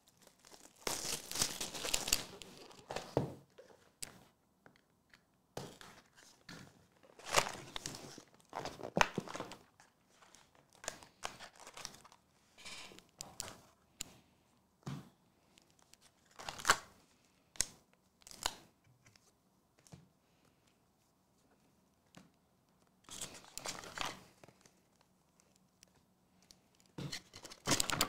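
Plastic shrink wrap being torn off a trading card box and crinkled by hand, in irregular bursts of tearing and rustling with a few quiet seconds about two-thirds of the way through.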